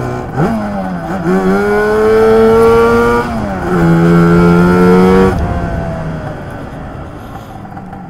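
Lambretta TargaTwin 275cc twin-cylinder two-stroke scooter engine accelerating hard under way. Its note rises, dips once about three seconds in, then climbs again. About five seconds in the throttle is shut, and the engine falls back to a quieter steady run.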